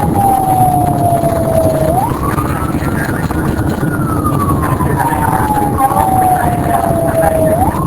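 Outdoor tornado warning siren wailing: each cycle the pitch climbs quickly, holds briefly, then falls slowly, heard twice, with a steady low rumble underneath.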